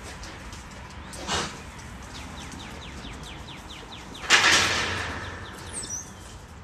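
A metal kennel gate knocks once about a second in, then bangs loudly about four seconds in, the clatter fading over a second. In between, a bird gives a rapid run of short falling chirps.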